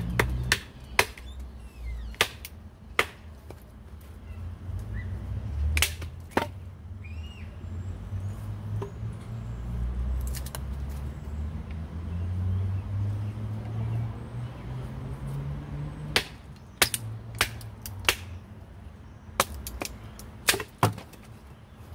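A folding knife being batoned through a length of wood: sharp wooden knocks as a stick strikes the blade's spine, and the wood splits. The knocks come singly and spaced out at first, then in a quicker run of about ten in the last six seconds, over a steady low rumble.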